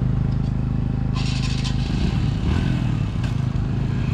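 Motorcycle engine idling close by in a steady low run; about two seconds in, its note turns rougher and uneven. A short hiss sounds about a second in.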